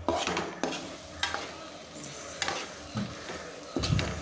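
Metal spatula scraping and knocking against an aluminium kadai, about six strokes, as spiced goat lung pieces are stirred over a steady sizzle of frying.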